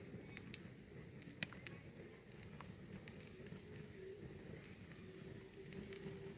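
Wood campfire crackling faintly, with scattered sharp pops. A faint steady hum comes in near the end.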